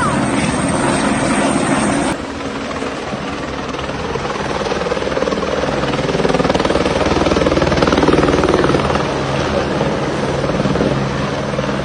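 Helicopter flying, its rotor and engine making a steady beat; the sound changes abruptly about two seconds in, then grows louder toward the middle and eases off again.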